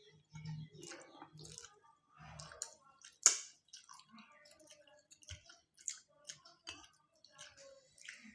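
Close-up eating sounds: chewing, and fingers mixing and squishing rice on steel plates, in small scattered crackles and soft thuds. About three seconds in comes a single sharp click.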